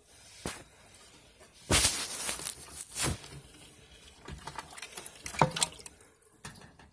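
Dry sphagnum moss and substrate rustling and crackling as a hand digs through it, in irregular bursts, the loudest about two seconds in and more near the end.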